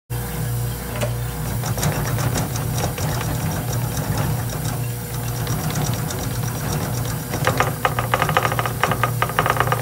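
Vacuum investing machine running, its pump and vibrating table humming steadily as the freshly poured investment in the flask is degassed under the bell jar. A dense rapid rattle builds near the end.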